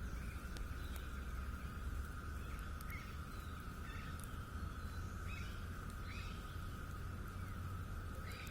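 Outdoor ambience: a steady high-pitched insect drone, with short bird chirps repeating every second or so over a low rumble.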